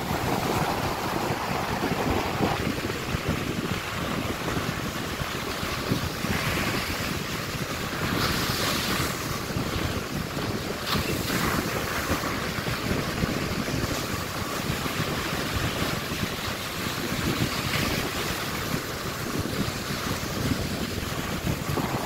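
Ocean surf breaking and washing up the shore in a continuous rush, with a bigger wave breaking about a third of the way in. Wind buffets the microphone.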